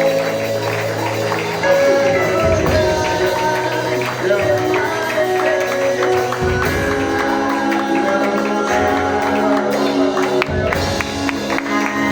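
Worship music with sustained chords, a bass line that changes every couple of seconds, and light percussion.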